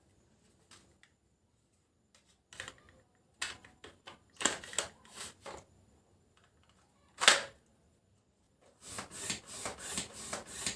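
Clicks and knocks of a homemade PVC toy gun being handled, with one much louder sharp crack about seven seconds in and a quick run of rattling clicks near the end.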